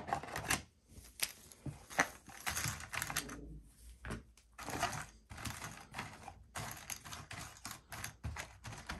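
Cardboard board-game tokens clattering and clicking against each other as they are settled by hand into a compartment of a box insert. It is an irregular run of many small clicks and rustles.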